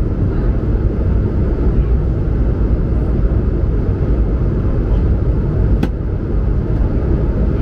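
Steady low cabin rumble inside an Airbus A220-100 in its climb: engine and airflow noise from its Pratt & Whitney PW1500G geared turbofans, with one small click about six seconds in.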